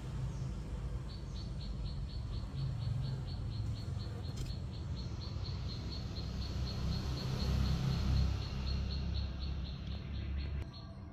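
A cricket chirping in a steady, even train of about four chirps a second over a low rumble; both cut off abruptly near the end.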